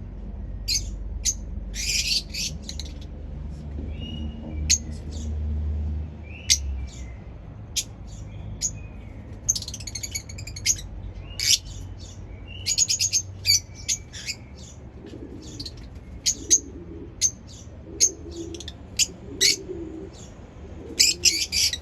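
Lovebirds chirping: many short, sharp, high-pitched chirps, some in quick rapid-fire clusters, scattered through the whole stretch.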